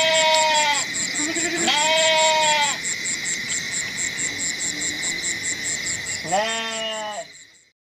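Sheep bleating three times, each call about a second long, the last one lower in pitch, over a steady high pulsing chirp. The sound fades out near the end.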